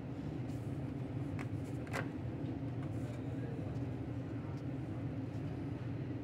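Steady low machine hum, with two short clicks about a second and a half and two seconds in.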